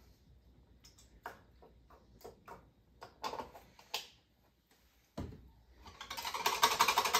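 A few scattered light clicks and taps, then from about six seconds in a whisk beating a creamy dressing in a small glass bowl: a rapid, even clicking that grows louder.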